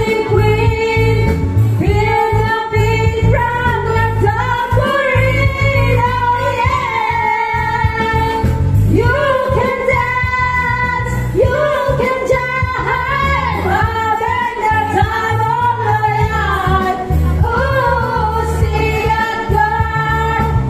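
Women singing karaoke into handheld microphones over an amplified backing track with a steady bass beat.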